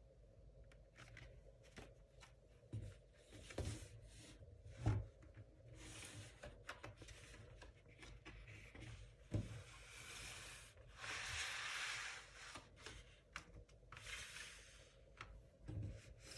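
A vinyl record and its packaging being handled during an unboxing: several rustling, sliding swishes of sleeve and wrapping, the longest about two seconds, with scattered small clicks and a sharp knock about five seconds in.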